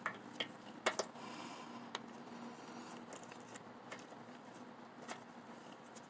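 Faint handling noise from a gloved hand working a small part under a car. Several light clicks and taps over soft rustling, the sharpest about a second in.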